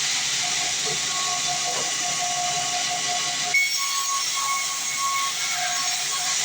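Sawmill band saw cutting through a log: a steady high hiss of the blade in the wood, with a faint whining tone that breaks in and out. The sound changes abruptly about three and a half seconds in.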